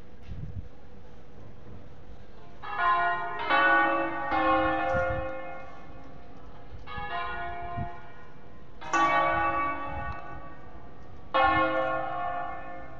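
The seven-bell ring of Cremona Cathedral, tuned in A-flat major, ringing in concert from the Torrazzo. Three strokes come in quick succession a few seconds in, then single strokes follow two to three seconds apart, each ringing on after it is struck.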